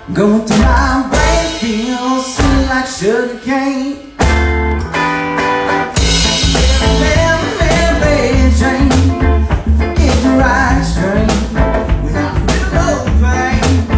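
Live music: a hollow-body electric guitar strummed with a man singing over it, and a drum beat. The sung line is plainest in the first few seconds; from about four seconds in the mix gets fuller, with steady drum hits and heavy bass.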